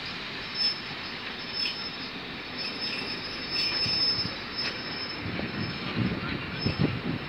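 Passenger coaches rolling slowly past. The wheels click over rail joints about once a second under a faint, high, steady wheel squeal. Near the end come a few low thumps.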